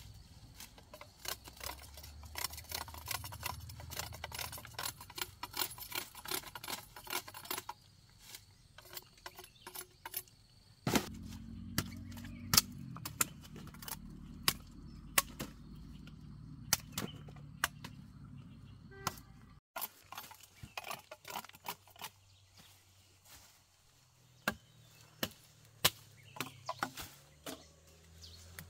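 Sugarcane being cut by hand. Dry cane leaves rustle and crackle densely for the first several seconds, then sharp chopping strikes and snaps follow at irregular intervals.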